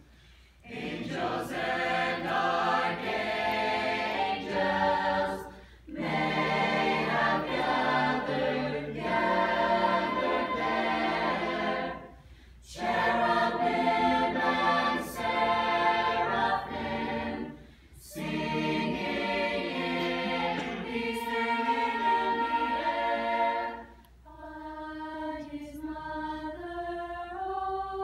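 Mixed-voice choir singing in full harmony, in phrases of about six seconds with brief breaks for breath between them. In the last few seconds the sound thins to fewer, quieter voices.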